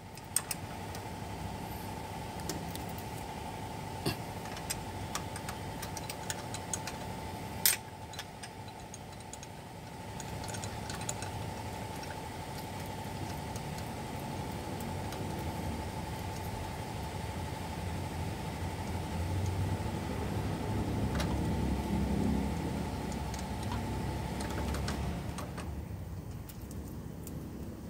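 Sharp metal clinks of a 12 mm wrench on the alternator's adjusting bolt as the fan belt is loosened, the loudest about half a second, four seconds and eight seconds in. Under them runs a steady engine hum that grows louder from about ten seconds in, peaks a little after twenty, and drops near the end.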